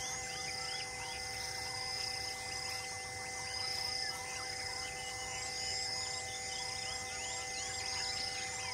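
Outdoor chorus of insects and birds: insects trilling and buzzing steadily, with many short rising bird chirps and a repeated whistled bird call.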